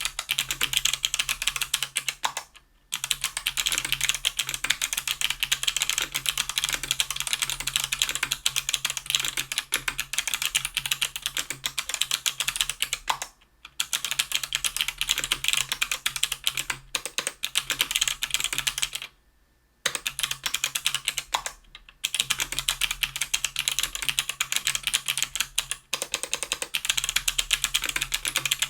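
Typing on a 60% aluminium mechanical keyboard with stock Kailh BOX Crystal Navy switches (90 g, clicky) and GMK keycaps: a dense, fast stream of sharp keystroke clicks. It breaks off briefly a few times, near 3 s, 13 s and 19 s in.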